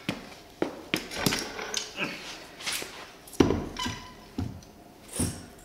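Irregular metal clanks, knocks and scrapes as a 1981 Honda XL500s single-cylinder engine is worked loose and lowered out of its motorcycle frame onto a floor jack.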